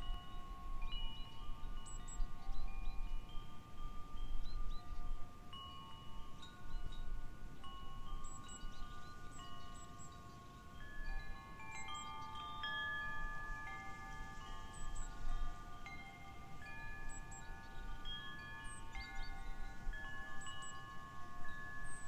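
Wind chimes stirred by the breeze, ringing a shifting cluster of long-sustained notes, struck irregularly throughout.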